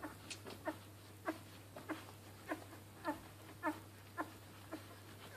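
Newborn vizsla puppies squeaking while nursing: short, high cries that fall in pitch, one or two a second, over a steady low hum.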